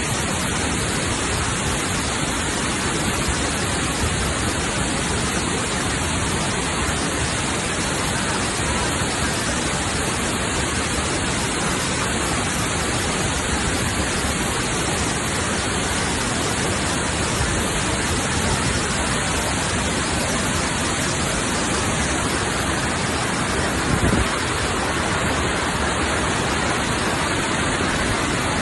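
Waterfall: water pouring and rushing steadily. A brief low thump near the end.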